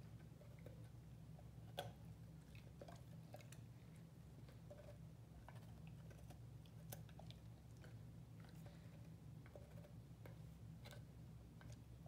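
Great Dane puppy gnawing and crunching a raw carrot: faint, irregular crunches and clicks, with one sharper crunch about two seconds in.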